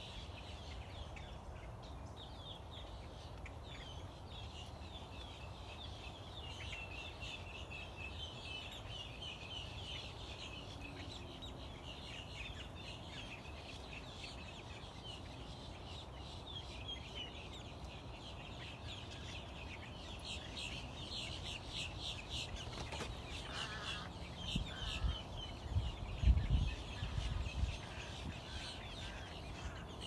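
A flock of birds chattering and calling together in a dense, unbroken chorus of quick, high notes. Under it runs a low rumbling noise, with a few louder bumps near the end.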